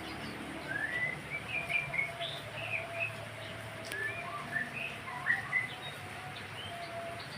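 White-rumped shama (murai batu) singing a run of short, varied chirps and whistled notes, the kind of song played to stimulate caged birds into singing. A faint steady hum runs underneath.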